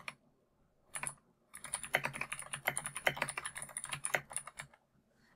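Typing on a computer keyboard: a single click, then a quick, even run of keystrokes lasting about three seconds that stops near the end.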